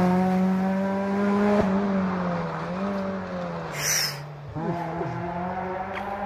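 Rally car engine fading into the distance after passing at speed, its revs dropping and rising again as it changes gear down the stage. About four and a half seconds in, an engine note rises again and then holds steady.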